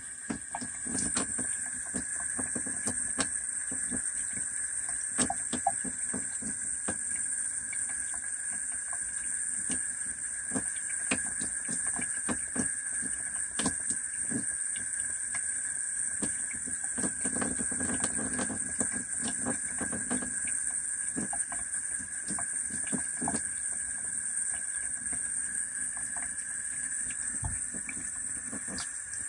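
Thin stream of water running steadily from a sink faucet, falling onto a cat's wet fur and into a utility sink, with scattered drips and splashes ticking throughout.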